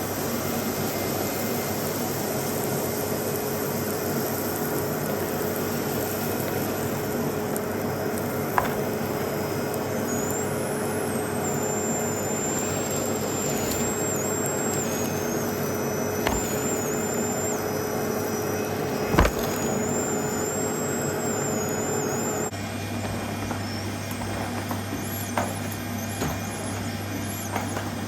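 Numatic Henry vacuum cleaner, a 2004 push-button model with a genuine motor, running steadily while vacuuming up dirt, with a wavering high whistle of suction for a stretch in the middle and a few sharp knocks of the tool. The running note shifts about two-thirds of the way through.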